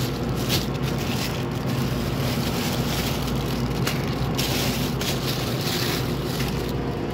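Plastic bag and plastic-wrapped frozen chicken packets rustling and crinkling as they are handled, in short irregular crackles, over a steady low hum.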